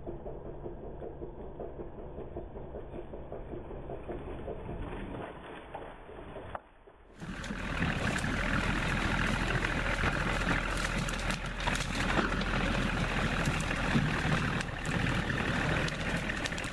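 Compact diesel tractor engine running steadily as its front-end loader carries and dumps a load of brush. The sound cuts out briefly about seven seconds in, then comes back fuller and louder.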